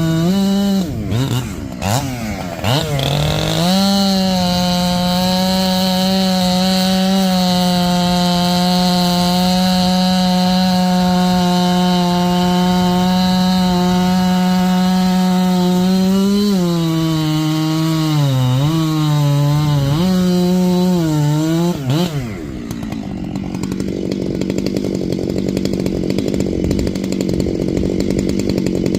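Husqvarna 592 chainsaw with a 32-inch bar and a new X-Cut chain, its rakers filed well down, running near full throttle while cutting into solid wood. The engine note holds steady, dips and recovers several times late in the cut, then drops off about 22 seconds in.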